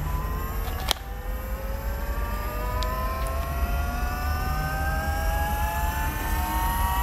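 Electric power steering pump running on the truck's firewall with a fairly loud whine that climbs slowly and steadily in pitch over a low hum. There is one sharp click about a second in.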